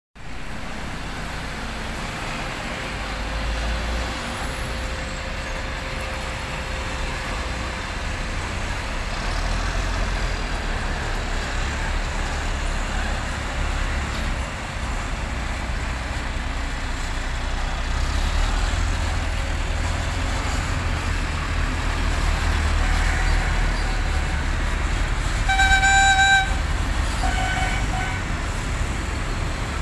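A convoy of six-wheeled armoured personnel carriers and military trucks driving past, their engines giving a low, steady rumble that swells and eases as vehicles pass. Near the end a vehicle horn sounds once for nearly a second, then twice more briefly.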